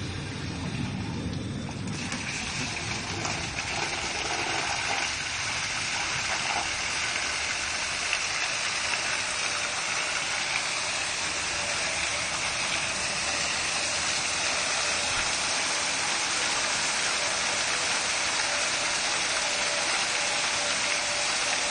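A water jet from a hose nozzle hitting the buckets of a small Pelton turbine wheel, giving a steady rushing spray. The spray sets in about two seconds in, as the wheel spins very fast.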